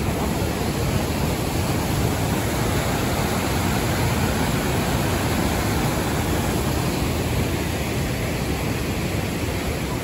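Steady rush of water pouring down a wide, stepped waterfall.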